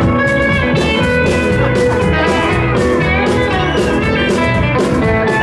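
Live country band playing a song's instrumental intro: electric guitar over bass and drums with a steady beat.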